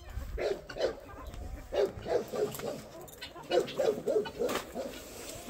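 Dog vocalizing in a series of short, low-pitched calls that come in quick clusters.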